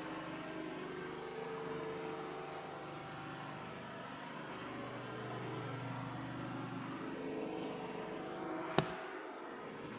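Clinical chemistry analyzer running a command: a steady motor and pump hum with faint tones that shift as its mechanisms move, and one sharp click near the end.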